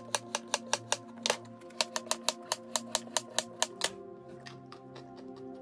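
Chef's knife slicing a carrot on a wooden cutting board: quick, even knocks at about five a second that stop about four seconds in. Background music plays throughout.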